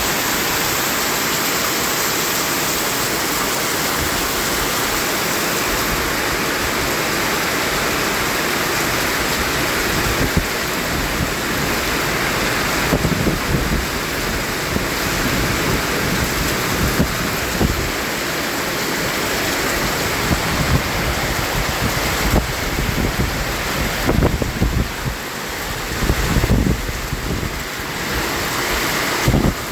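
Continuous white-noise sleep sound: a steady, even hiss across all pitches. From about ten seconds in, uneven low rumbling gusts and brief loud spikes come and go beneath it, like wind buffeting a microphone.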